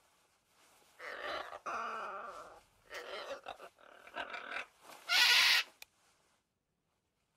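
Macaw calls from Google's 3D AR macaw model: a run of about five harsh squawks and chattering calls, the last and loudest about five seconds in.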